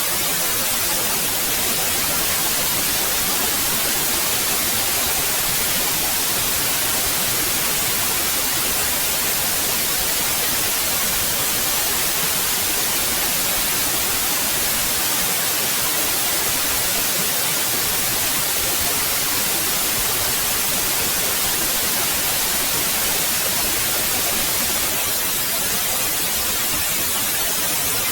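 Synthetic white noise: a steady, even hiss, brightest in the high frequencies.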